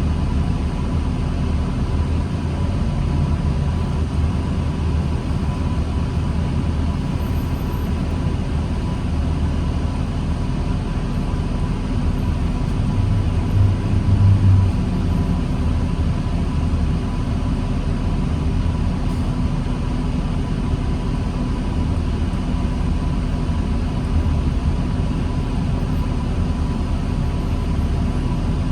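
2009 New Flyer D40LFR diesel transit bus running slowly in traffic as a steady low rumble, with a faint steady high whine throughout. The engine briefly swells louder about halfway through.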